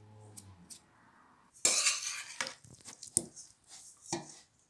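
Metal spoon scraping and clinking against a stainless steel pot while stirring chunks of cooked goat meat and onion: one loud scrape a little under two seconds in, then several shorter scrapes and clinks.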